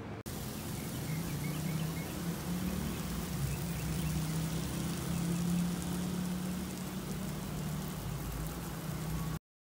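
Lawn sprinklers spraying water, a steady rain-like hiss over a low hum, with a few faint bird chirps a second or two in. It cuts off suddenly near the end.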